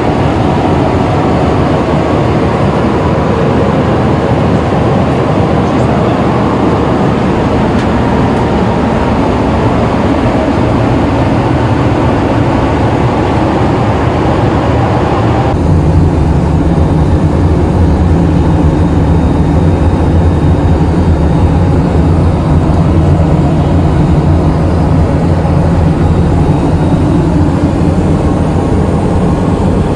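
Steady, loud cabin noise inside a Boeing 737-800 jet airliner: engine and airflow noise. About halfway through it changes abruptly to a deeper rumble with less hiss.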